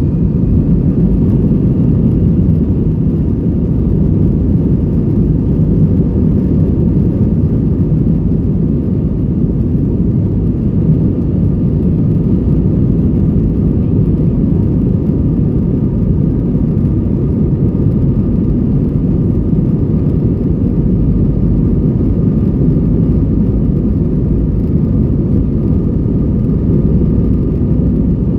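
Jet airliner cabin during the takeoff roll: the engines and the wheels on the runway make a loud, steady low rumble, with a faint whine from the engines above it.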